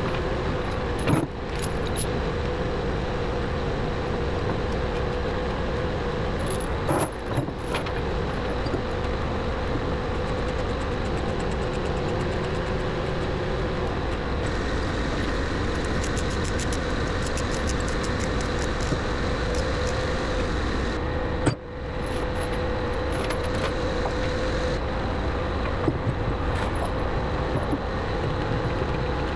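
Heavy diesel engine running steadily, with a few short clanks and rattles over it.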